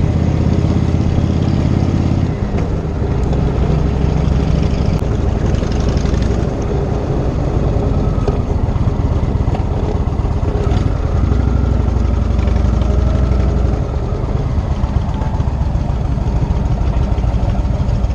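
Indian Chieftain motorcycle's V-twin engine running while the bike is ridden along a road. The engine note changes and dips briefly about two seconds in, and shifts again later on.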